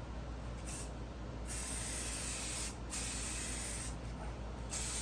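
Aerosol can of chrome spray paint hissing as a coat is sprayed onto metal trim, in several passes with short breaks between them.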